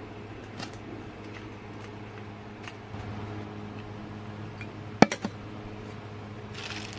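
Coffee poured from a glass server over ice into a tall glass, then a sharp glass clink about five seconds in, with a lighter knock just after. A steady low hum sits underneath.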